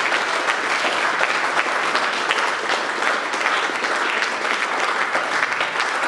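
Audience applauding, many hands clapping together.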